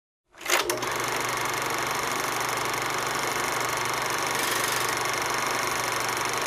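Old reel-to-reel film projector switching on with a couple of clicks about half a second in, then running with a steady mechanical whir over a low hum.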